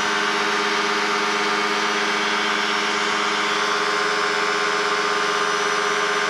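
Challenger II ultralight aircraft's engine and propeller droning steadily in flight, holding one unchanging pitch.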